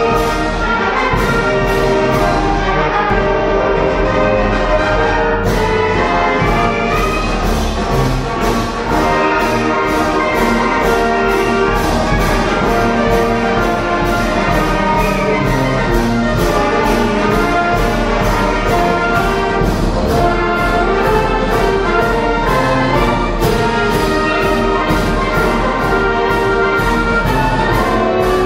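Concert band of woodwinds, brass and percussion playing a march, with a steady beat.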